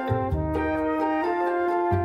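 Background music: held melody notes changing every half second or so over a low bass line.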